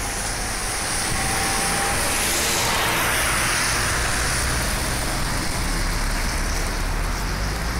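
Steady road-traffic noise with a low rumble, and one vehicle passing, its noise swelling and fading about two to four seconds in.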